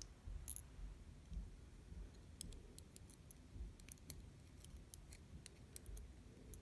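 Faint, irregular small clicks of tiny metal lock pins being handled and picked at while being loaded into a lock core.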